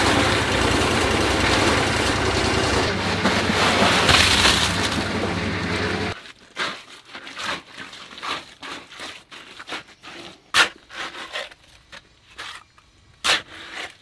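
Cement mixer running with a steady, loud noise that cuts off abruptly about six seconds in. After that come quieter scrapes and soft knocks of wet concrete being shovelled and pushed into a footing hole, with two sharper clicks near the end.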